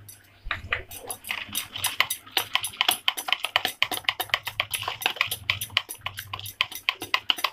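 A metal wire whisk beating a wet egg-and-spice marinade in a plastic bowl, its wires clicking against the bowl several times a second. The clicking starts about half a second in.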